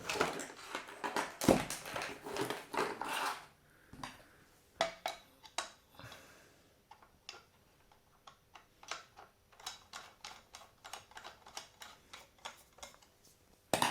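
Hard plastic and metal parts clicking and knocking as a flip clock's housing is handled and closed up. There is one louder knock about a second and a half in, then a long run of light, quick ticks.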